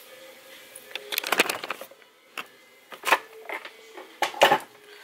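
A banana being peeled and broken into a plastic blender jar: a burst of rustling as the peel tears about a second in, then several short sharp clicks and knocks.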